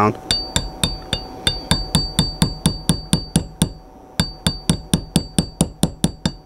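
Small hammer tapping a pin punch to drive the extractor roll pin down into a Springfield Armory XD-S 9mm steel slide. The taps come about four a second, each with a short metallic ring, with a brief pause a little past halfway.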